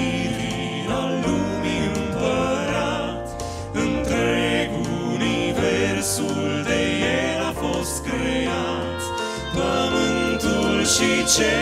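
Male vocal quartet singing in harmony into handheld microphones, amplified through the church's loudspeakers.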